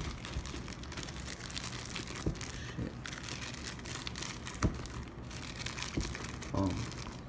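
Clear plastic bag holding spare shoelaces crinkling as it is handled, with a few knocks along the way.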